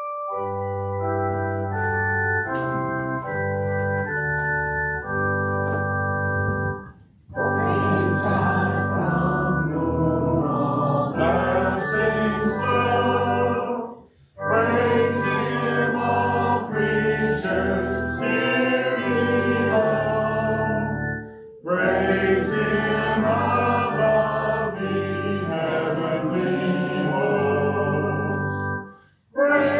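Organ plays sustained hymn chords, and about seven seconds in a congregation begins singing the hymn with it, with short breaks between lines.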